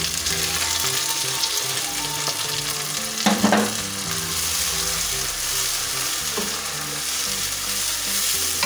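Chopped tomatoes sizzling in hot oil with browned onions in a wok, stirred with a wooden spoon. There is one brief louder clatter about three seconds in.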